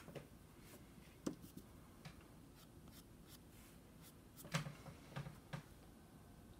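Faint scratching and tapping of a soft chalk pastel stick on paper: a few short, scattered strokes, with a cluster of them about four and a half seconds in.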